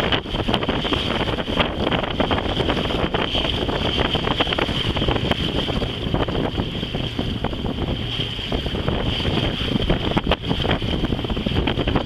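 Wind buffeting the microphone aboard a sailboat under way, over a steady rush of wind and water.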